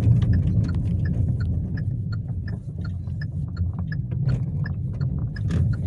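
Low engine and road rumble inside a Hyundai car's cabin at slow driving speed, with the turn indicator ticking evenly, about two to three ticks a second, from about a second in.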